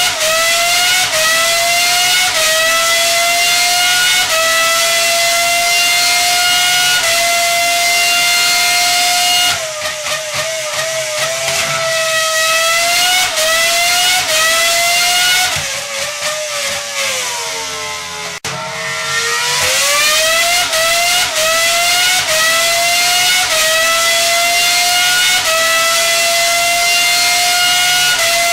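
High-revving engine climbing in pitch in repeated steps, each short rise broken by a small drop, as when shifting up through the gears. About ten seconds in, it falls away unevenly and gets quieter, then climbs through the steps again.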